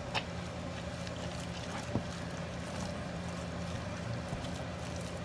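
A steady low background hum, with a few light clicks and knocks as thick plaster texture paste is worked by hand off a whisk in a plastic jug: one at the start, another just after, and one about two seconds in.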